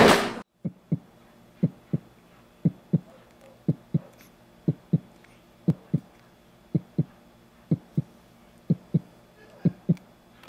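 Heartbeat sound effect: slow, low lub-dub thumps in pairs, about one beat a second, after music cuts off abruptly at the start.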